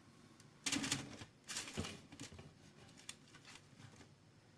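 Light clicks and clatter of kitchen handling: two short bursts of clatter about a second in, then scattered faint taps.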